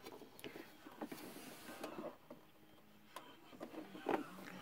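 Faint scattered clicks and light rustling from handling a plastic model hauler trailer.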